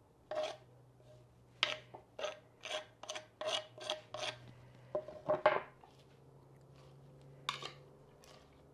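Metal utensil scraping grated carrot off a wooden cutting board into a clay bowl: a run of short rasping strokes, about two a second, then a few louder scrapes about five seconds in and one more near the end.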